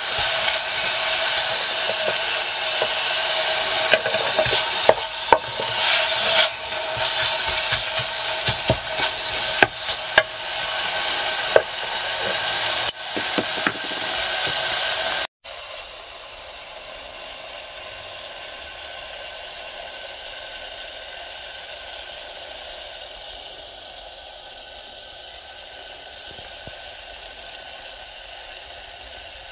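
Diced bacon sizzling in oil in a Trangia pan, with a wooden spoon scraping and clicking against the pan through the first half. About halfway through it cuts abruptly to a much quieter, steady sizzle.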